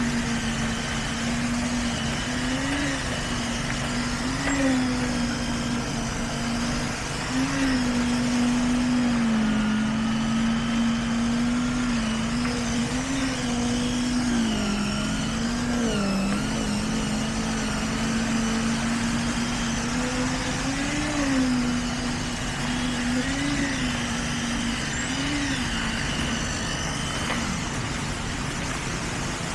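Engine of construction machinery running steadily, its pitch rising briefly now and then as the revs lift and fall back.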